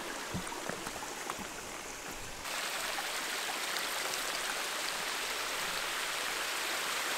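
Small stream running and splashing over rocks, with a few light knocks early on. About two and a half seconds in the rushing steps up abruptly and then stays steady.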